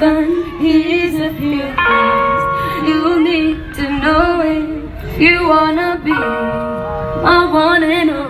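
A woman singing into a microphone over instrumental backing, amplified through a stage sound system, in sung phrases with held notes between them.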